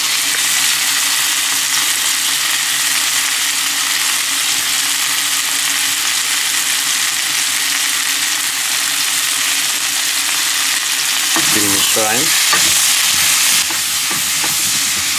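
Cauliflower, potato and tomato pieces sizzling in hot oil in a non-stick frying pan, with a steady frying hiss, stirred with a wooden spatula.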